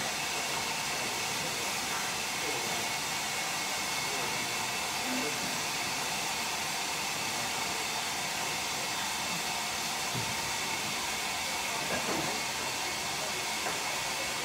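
Steady hiss of steam from LMS Jubilee class locomotive 45627 Sierra Leone simmering at a standstill, with a couple of light knocks in the second half.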